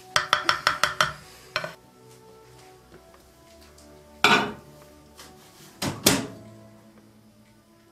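Wooden spoon knocked rapidly against the rim of a glass bowl, about eight quick taps in the first second and a half. Then a loud clatter as the bowl is set into a microwave oven about four seconds in, and the microwave door shut with a clack about two seconds later.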